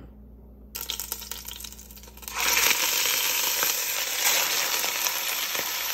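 A few faint clicks and crackles of hot oil, then about two seconds in a beef roast laid into a very hot, oiled enamel-coated cast iron Dutch oven starts sizzling loudly and steadily as it begins to sear.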